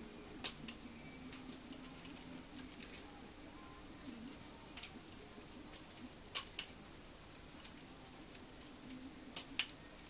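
Balisong (butterfly knife) being flipped: irregular sharp metallic clicks and clacks as the handles swing around the blade and snap together, the loudest about half a second in, past six seconds, and twice near the end.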